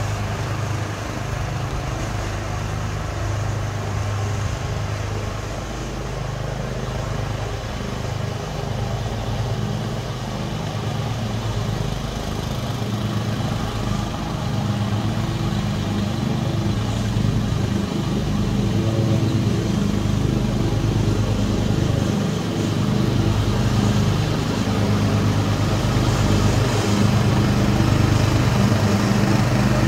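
Small gasoline engines of a Craftsman 12.5 hp riding lawn tractor and the 13.5 hp engine of a towed 60-inch Swisher pull-behind mower running steadily while mowing long grass, growing slowly louder as the rig comes closer.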